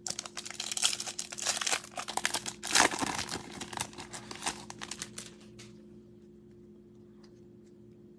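Foil wrapper of a Bowman baseball card pack crinkling and tearing as it is ripped open by hand, loudest about three seconds in. The crinkling stops after about six seconds.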